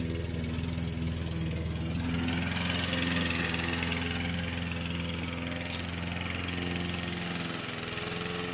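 Lawn mower engine running steadily at a constant pitch, a little louder and noisier for a few seconds in the middle.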